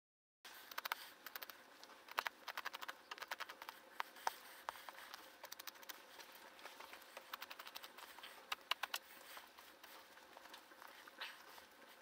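Small knife and gloved fingers working a hide's ear skin away from the cartilage: many faint, irregular little clicks and scrapes, starting abruptly about half a second in.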